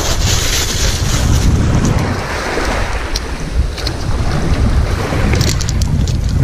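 Wind buffeting the microphone in a steady, rumbling rush, with a few faint clicks about three to five and a half seconds in.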